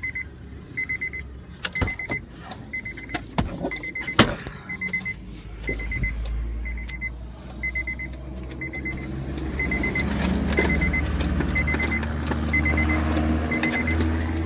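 A Honda City's warning chime beeps steadily about twice a second, with a few sharp clicks. About five seconds in the engine turns over and starts, then runs steadily from about nine seconds on, now that the blown main fuse has been replaced.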